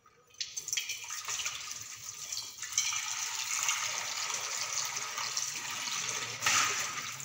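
Tap water running into a stainless steel kitchen sink as a steel bowl is rinsed under it; the water starts about half a second in and splashes louder near the end.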